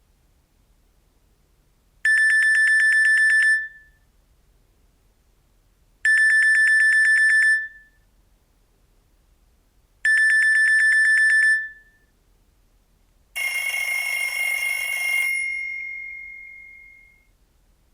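Nokia C2-01 mobile phone playing a ringtone through its loudspeaker: a fast electronic trill lasting about a second and a half, repeated three times four seconds apart. About thirteen seconds in, a different, fuller tone sounds for about two seconds, leaving one note that fades out over the next two seconds.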